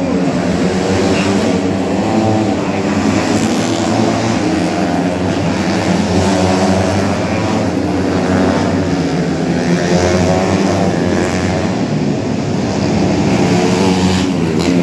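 125cc four-stroke underbone racing motorcycles running hard, their engine pitch rising and falling over and over as they accelerate and shift through the race.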